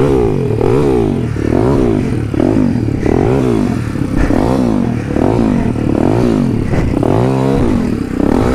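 Demon X 170 Detroit pit bike engine revved up and down over and over, about one and a half rises a second. The rear wheel is failing to find traction on a steep bank.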